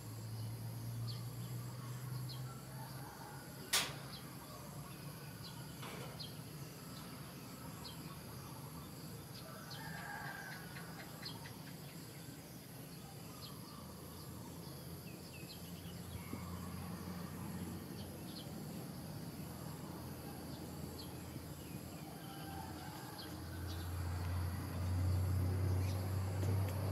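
Outdoor ambience: a steady high insect drone with scattered short bird chirps, and a low hum that grows louder near the end. A single sharp click about four seconds in.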